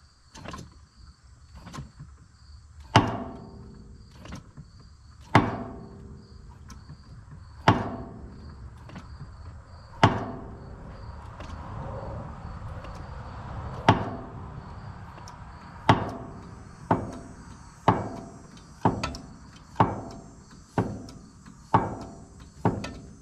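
Sharp metallic knocks, each with a short ring. They come every two seconds or so at first and about once a second later on. They are heard while a seized 1949 Case LA engine is being forced to turn with hydraulic pressure in a cylinder.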